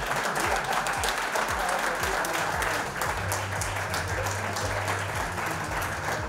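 Audience applauding, a dense run of hand claps.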